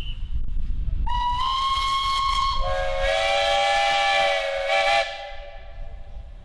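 Steam locomotive whistle blowing: a single steady note starts about a second in, gives way about a second and a half later to a lower chord of several notes, and cuts off sharply at about five seconds.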